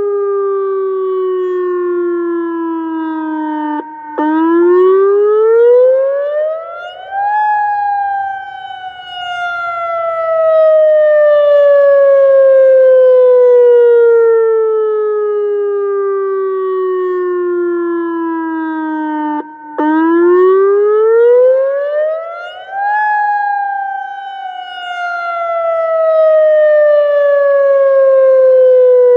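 ATI HPSS-32 electronic outdoor warning siren sounding its wail signal. The pitch climbs over about three seconds, then sinks slowly over about twelve, twice, with a brief break just before each climb.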